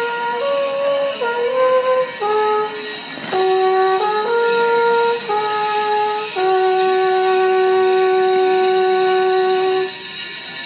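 An alphorn playing a slow melody of held notes, ending on one long note that stops near the end.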